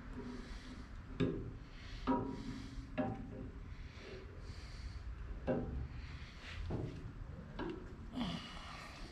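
Metal parts of a surface grinder being handled and fitted during reassembly: about seven short knocks and clinks, each with a brief ring, with some rubbing and sliding between them, over a low hum.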